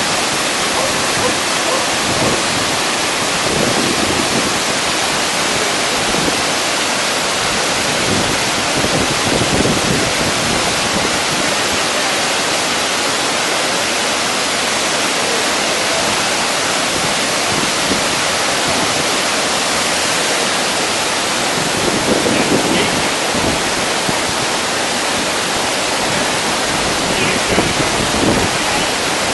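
Waterfall on Ohau Stream: a steady, loud rush of falling water, swelling slightly a couple of times.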